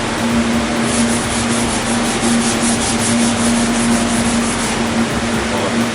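Primer-surfacer being sanded by hand to a feather edge on an old car's dashboard: quick, even back-and-forth strokes of abrasive starting about a second in and stopping near the end, over a steady hum.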